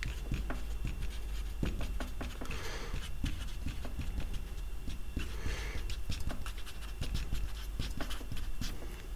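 Marker writing on a whiteboard: many short scratches and taps of the tip against the board, with a couple of soft breaths between strokes.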